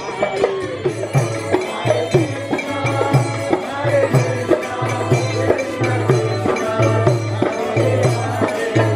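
Indian devotional chanting music: a two-headed barrel drum beating about twice a second under piano accordion and group chanting.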